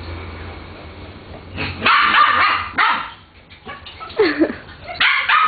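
Dogs barking in play: a loud burst of barking about two seconds in, then quick short barks starting again near the end.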